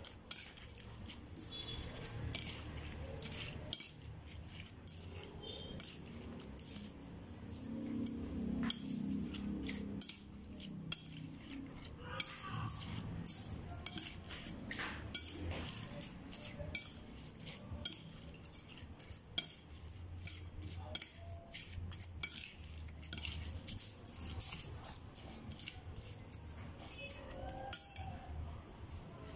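Metal spoon stirring raw crablets in a ceramic plate, with many small clinks and scrapes of the spoon against the plate.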